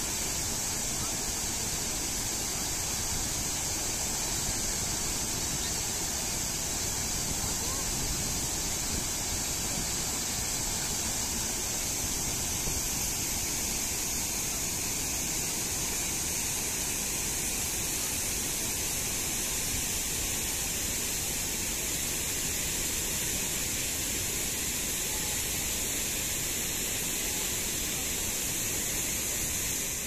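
Large waterfall in heavy flow: a steady rush of falling water, with a strong hiss of spray over a low rumble.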